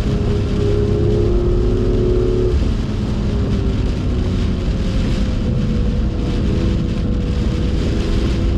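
BMW M2's turbocharged straight-six pulling under load, heard from inside the car, with a short drop in engine note about three seconds in. Heavy rain and tyre spray on a very wet track make a constant hiss under the engine.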